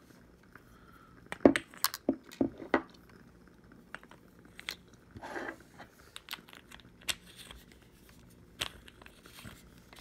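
Clicks and light metallic knocks from handling a metal LED flashlight's parts, as an 18650 battery is fitted into the tube and the threaded tail cap is screwed back on. A quick run of clicks comes in the first few seconds, then a short scrape and scattered single clicks.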